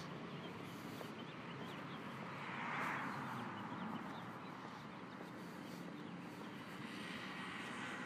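Steady outdoor background noise with a low hum, swelling briefly about three seconds in.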